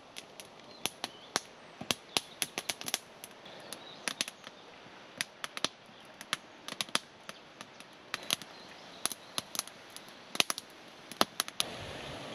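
Dry wood crackling and snapping in quick, irregular sharp pops, several a second, with a steadier hiss coming up near the end.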